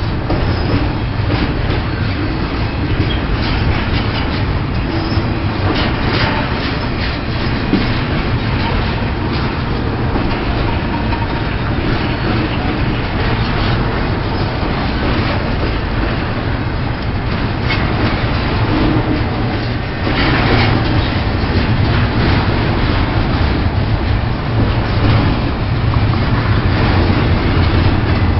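Pan Am Railways freight train rolling by: a steady rumble of cars on the rails with irregular clatter, getting a little louder about twenty seconds in.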